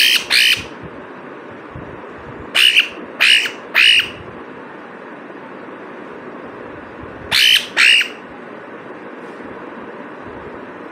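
Green pet parrot giving short, harsh squawks in quick groups: two at the start, three a couple of seconds later, and two more near the end, over a steady background hiss.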